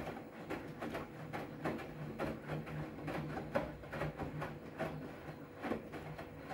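Front-loading washing machine in its wash phase: a steady motor hum as the drum turns, with wet laundry tumbling and water sloshing in irregular swishes, about two or three a second.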